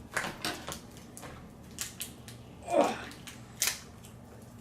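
Hands handling a freshly opened cardboard toy carton packed with Play-Doh: scattered small clicks and crinkles, with a brief louder sound just under three seconds in and a sharp click soon after.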